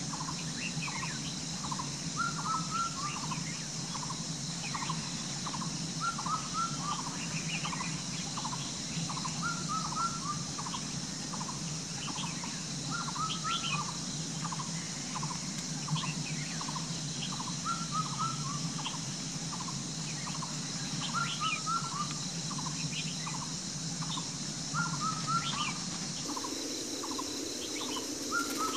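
A bird calling over and over: short notes about twice a second, with a fuller warbled phrase every three to four seconds, over a steady rush of creek water.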